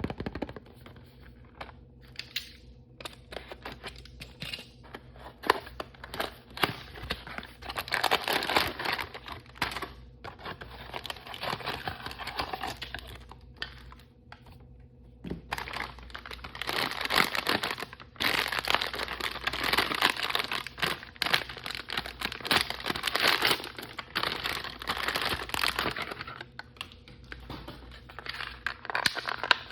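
Crinkly blind-bag wrappers being handled, crumpled and torn open by hand, in long spells of close, loud rustling and tearing. There is a short lull about halfway through.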